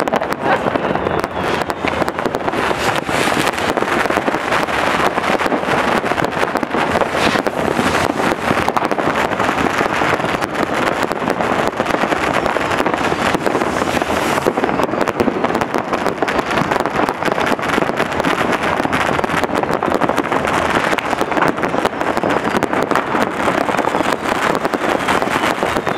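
Many fireworks and firecrackers going off at once: a dense, unbroken crackle of small cracks and bangs, loud throughout.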